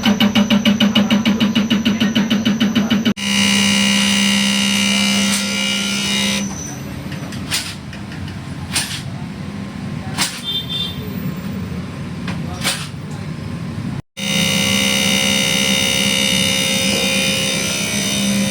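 Toyota Land Cruiser 200's V8 diesel engine running, heard across several cut-together clips. It pulses rhythmically about seven times a second for the first three seconds, then turns to a steady hum with a high whine, a noisier stretch with a few sharp clicks, and the steady hum again.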